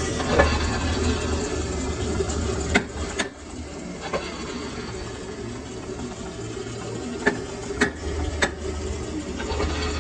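Lathe running with a steady hum and hiss, with a few sharp metallic clicks about three seconds in and again near the end.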